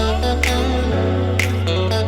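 Background music with a steady beat, plucked guitar-like notes over a bass line that changes about a second in.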